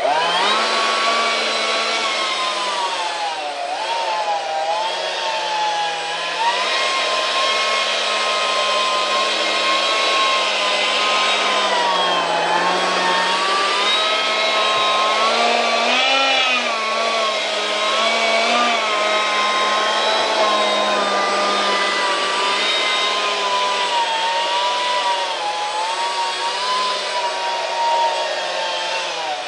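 Detrum 70 mm electric ducted fan running steadily, a whine over a rush of air. The whine's pitch dips and rises a few times as the throttle is moved, dipping about 4 and 12 seconds in and rising briefly about 16 seconds in.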